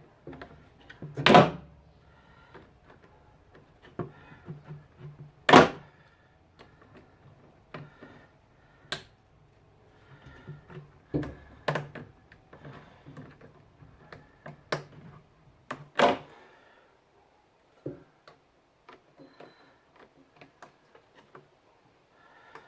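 Hand work on coolant hoses and a plastic coolant tank in a car's engine bay: a run of light clicks and rattles of plastic, clamps and tools, with three sharper knocks (about a second in, near six seconds, and around sixteen seconds).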